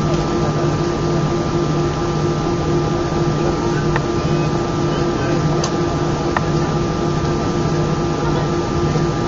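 Airbus A319 cabin noise during taxi: a steady hum and hiss of the engines and air conditioning, with a low droning tone that swells and fades about once a second and a few faint clicks.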